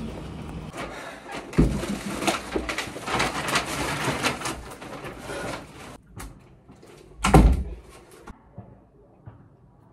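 Clattering and knocking handling noises that stop abruptly, then a single loud thump, like something heavy set down or a door shut, about seven seconds in.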